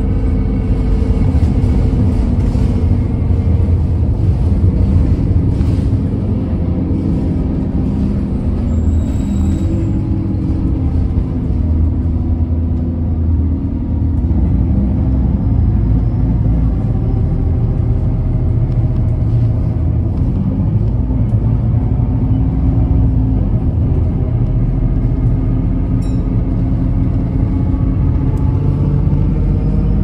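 Alexander Dennis Enviro300 single-deck bus heard from inside while driving: a steady engine and drivetrain drone with road rumble. Its pitch dips, then climbs near the end as the bus picks up speed. A brief high squeal comes about nine seconds in.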